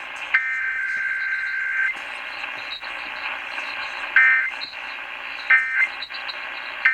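Emergency Alert System SAME digital header tones received over a broadcast radio: a buzzing two-pitch data burst that ends about two seconds in. After a stretch of radio hiss come three short data bursts about 1.3 s apart, the end-of-message code.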